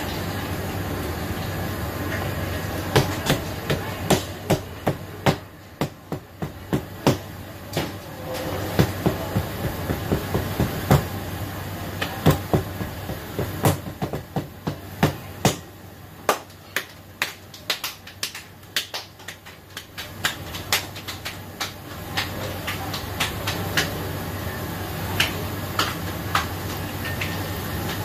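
Repeated sharp knocks in an irregular series, several a second in bursts, struck in a commercial kitchen over the steady hum of the kitchen's ventilation.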